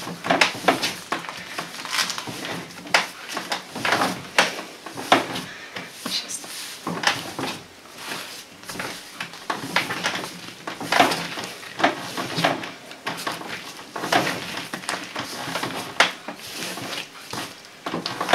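Hands kneading a large ball of sweet yeast dough for paska: irregular slaps and thuds, about one or two a second, as flour-coated raisins are worked into the dough.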